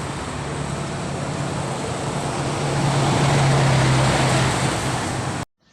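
Street traffic noise with a motor vehicle's engine hum swelling as it passes close, about three to four seconds in. The sound cuts off abruptly near the end.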